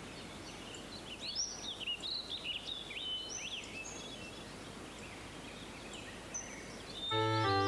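Small birds chirping over a steady outdoor hiss, many short rising and falling calls; piano music comes in near the end, louder than the birds.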